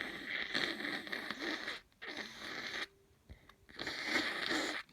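Air forced through a snotty, congested nose: three noisy rushes, the first lasting nearly two seconds, then two shorter ones with short pauses between, the sound of nose blowing and sniffing.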